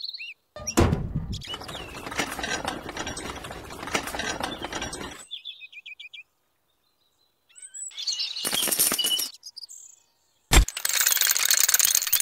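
Scraping and clattering as small toy vehicle parts are handled and hitched together, with a sharp click about ten seconds in. Short bird chirps come in between.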